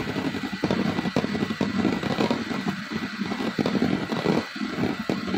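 Electric hand mixer running at low speed, its beaters whirring through egg-and-sugar cake batter as oil is mixed in, with frequent short clicks throughout.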